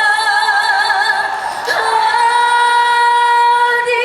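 A woman singing a Korean trot ballad unaccompanied through a PA, holding long notes with vibrato and moving to a new held note about two seconds in.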